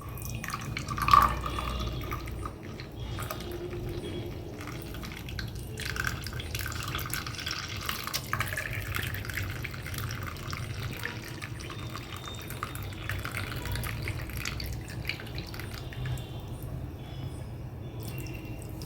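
Hot spiced milk poured through a strainer into a cup: a steady trickling stream of liquid with dripping, and a short knock about a second in.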